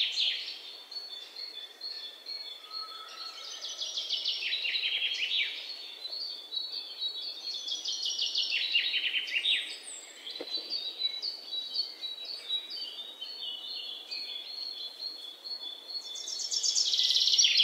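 A flock of waxwings calling: many high, fast-pulsed trills overlapping, swelling and fading in waves and loudest near the end.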